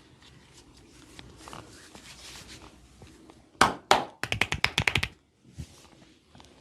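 Massage hand strikes on the body: two sharp slaps, then a fast run of about nine quick percussive claps, with faint rubbing before them.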